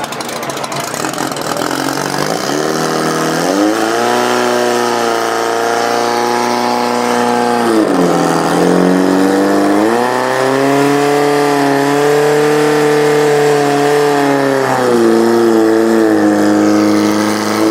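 Portable fire pump's engine running hard at high revs. Its pitch climbs a few seconds in, dips sharply about halfway through, then climbs back and holds.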